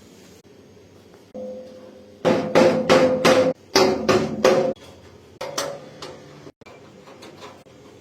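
Metal server-rack parts struck in a quick run of about nine blows, each leaving a short metallic ring.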